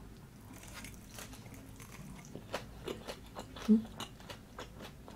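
Close-miked chewing of a crisp pan-fried hash brown: many small crunchy crackles, and a short low hum from the eater about three and a half seconds in.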